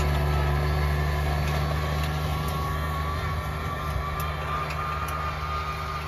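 Compact tractor engine running steadily as the tractor tows a sled through snow, a low even hum that eases off slightly toward the end.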